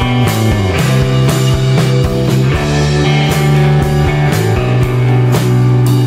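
Background music with a steady drum beat and sustained guitar-like notes.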